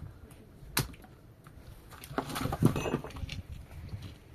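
Scattered sharp knocks: a single strike about a second in, then a short, busier stretch of knocking and rustling around the middle, and a few lighter clicks after it.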